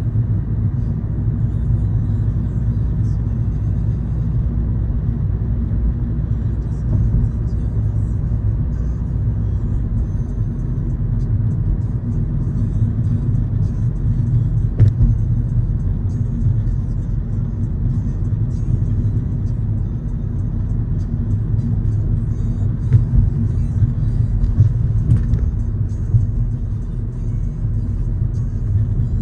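Car driving at a steady speed: a continuous low rumble of tyre and engine noise, with a few short knocks along the way. Music plays underneath.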